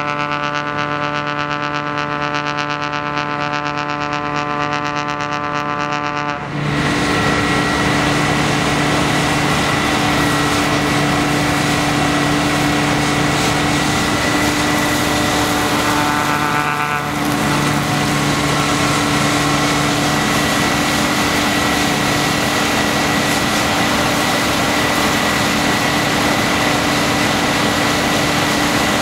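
Engine-driven snow-blowing machine running, pushing snow through a long hose. It begins as a steady humming drone; about six and a half seconds in, a much louder, steady rush of blown snow starts, dips briefly about seventeen seconds in, then carries on.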